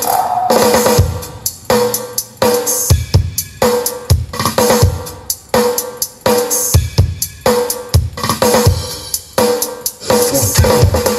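Drum-heavy music played loud through a GC speaker stack with NMAX bass cabinets, as a music sound check. Hard kick-drum thumps and snare hits come at a steady beat over a repeating melodic figure.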